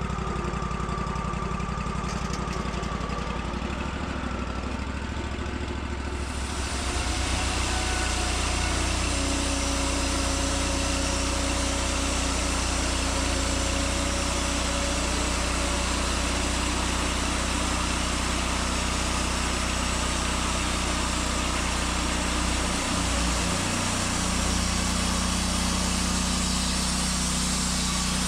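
Band sawmill's engine running steadily. From about seven seconds in it grows louder, with a hiss added over the hum.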